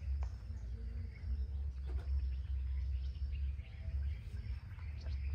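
Outdoor rural ambience: faint bird chirps over a steady low rumble, with a few faint knocks.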